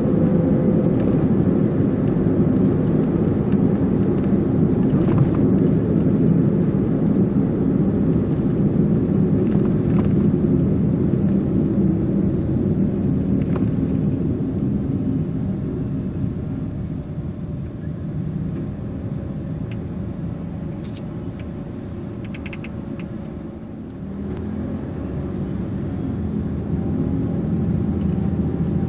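A car driving on a city road: steady low rumble of tyres and engine. It eases off as the car slows for an intersection, then builds again as it pulls away a few seconds before the end.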